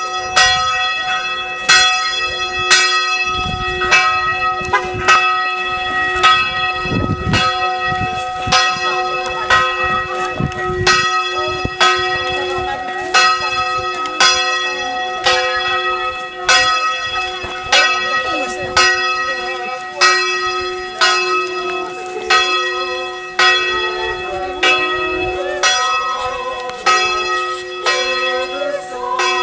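A single church bell being swung, striking about once a second with an even rhythm, each stroke ringing on into the next over a steady hum.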